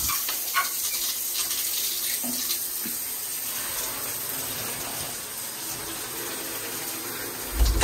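Steady hiss of running water, holding at an even level throughout.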